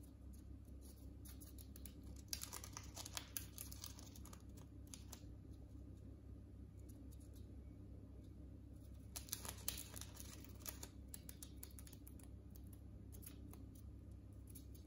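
Budgerigar pecking and nibbling at a sheet of newspaper: faint, scattered crinkles and little tearing clicks of paper. They come in two busier flurries, one about two to three and a half seconds in and another about nine to eleven seconds in.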